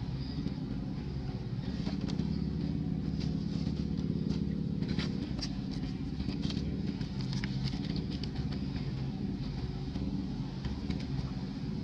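A steady motor engine hum, running at an even pitch, with scattered light clicks and crackles over it, most of them a few seconds in.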